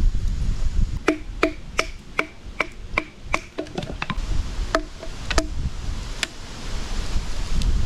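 Firewood being chopped or split with a blade: a quick run of sharp wooden knocks, about three a second, then a pause and a few more strokes, each with a brief ringing.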